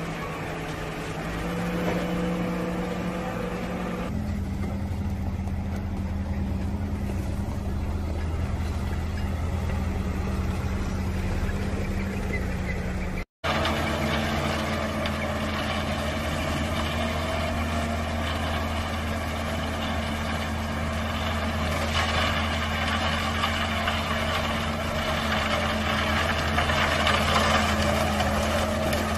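Diesel engine of an Ajax Fiori Argo 2000 self-loading concrete mixer running steadily as the machine works. The sound cuts out for an instant about 13 seconds in.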